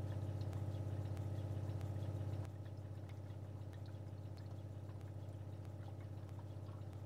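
Motorhome fresh-water pump running with a fast pulsing hum while air is purged from the hot-water line through the open kitchen tap. About two and a half seconds in it drops in level and goes on more quietly.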